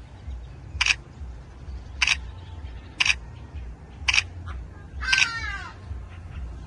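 Camera shutter clicking four times, about once a second, as photos are taken. Near the end there is a short call that falls in pitch, over a steady low rumble.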